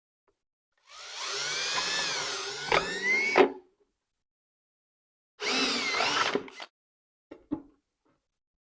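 Power drill boring holes through the overlapped plastic wall of a bucket for rivets: two bursts of motor whine whose pitch rises and falls, the first with a couple of sharp knocks near its end, followed by a few light clicks.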